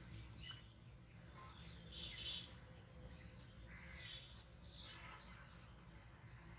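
Faint, scattered chirps of birds calling, over a low, steady background rumble.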